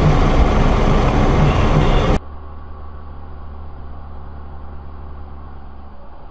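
Loud, dense vehicle and road noise that cuts off abruptly about two seconds in. It is replaced by a quieter, duller steady vehicle drone: a low engine hum with road rumble, heard from inside a moving vehicle.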